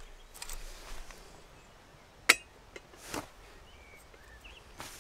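A metal kettle and small camp stove being handled: a sharp metallic clink a little over two seconds in, with a couple of lighter knocks and brief rustles around it. Faint bird chirps sound in the background.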